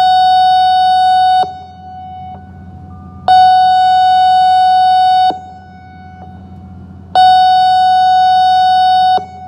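ASC I-Force electronic outdoor warning siren sounding a loud steady tone in long blasts of about two seconds, repeating about every four seconds: one ends about a second and a half in, and two more follow.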